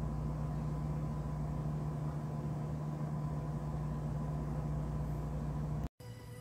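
Steady low machine hum, with a thin steady whine above it, that cuts off abruptly near the end.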